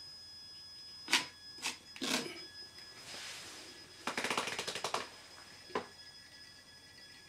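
Stepper motor driving a model railway turntable: a few sharp clicks, then about a second of rapid, evenly spaced ticking as the deck turns, and one more click near the end, over a faint steady high whine.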